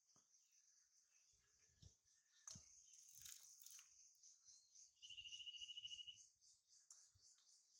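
Near silence: a faint, steady high buzz of crickets or other insects. About five seconds in, a short rapid trill lasts about a second. Small soft crackles come from fried fish being picked apart by hand.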